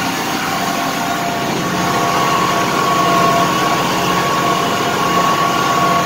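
Diesel engine of an 8450 tractor running under load as it climbs a slight grade through dense snow: a steady drone with a steady whine on top, slowly getting louder over the first few seconds.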